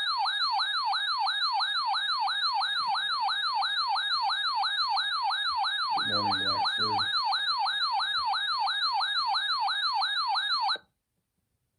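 Electronic siren sweeping rapidly up and down in pitch, about three times a second, steady in level, then cutting off abruptly near the end.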